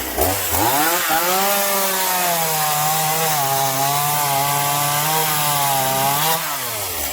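Chainsaw revving up about half a second in and held at full throttle as it cuts through the swing set's wooden legs, then dropping back toward idle near the end.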